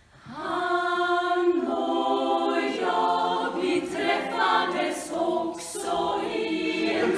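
Women's choir singing in Swedish in several parts. The singing comes in suddenly just after the start and carries on in long held notes.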